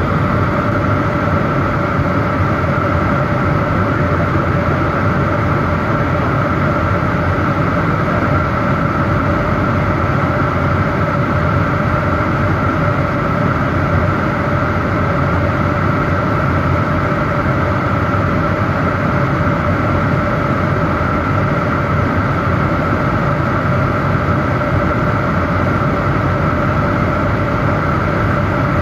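Steady cabin noise of a jet airliner in cruise: a constant rush of air and engine hum with two held tones, one low and one higher.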